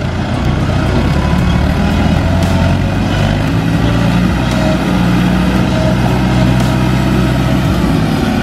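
Landini DT85 4WD tractor's diesel engine working under load as it pushes mud with its front blade, running steadily and picking up revs about three seconds in.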